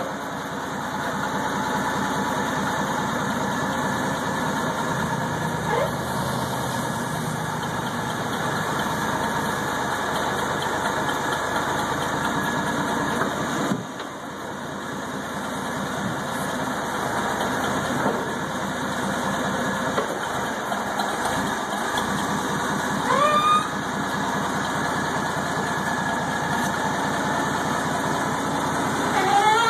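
Propane-fuelled Clark forklift engine running steadily under its operator, dipping briefly about halfway through.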